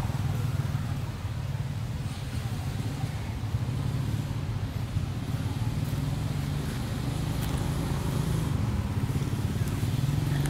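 Steady low drone of an engine running, holding an even pitch with no change in speed.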